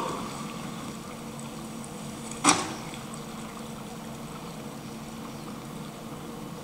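A low steady hum over a faint hiss, broken once by a short sharp knock about two and a half seconds in.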